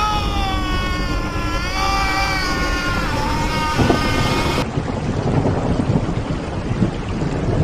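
Steady heavy rain, with a long, wavering high-pitched tone that has several overtones and stops about four and a half seconds in.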